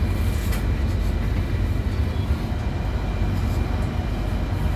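Steady low rumble and hum inside a stationary passenger train carriage, with a brief click about half a second in.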